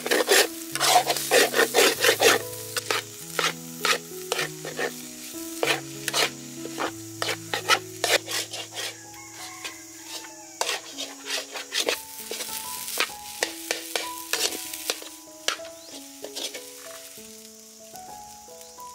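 A perforated metal spoon stirring and scraping crumbly food in a steel wok: a quick run of clicks and scrapes that thins out after about ten seconds. Background music with held notes plays underneath.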